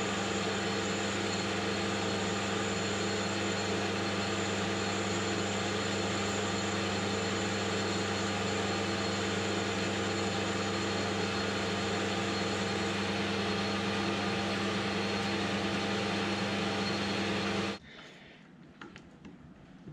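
Metal lathe running steadily in reverse while a taper is cut on a small 4140 steel collet, a constant hum with a strong low drone. It stops suddenly near the end, leaving a few faint clicks.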